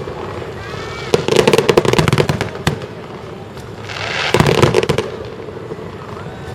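Fireworks display: a volley of rapid crackling bangs about a second in, then a swelling hiss that breaks into another burst of crackling bangs about four seconds in.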